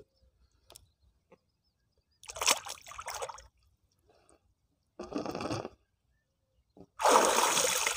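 River water sloshing and splashing in two short bursts as a person ducks under, followed near the end by a loud rush of splashing as he comes up.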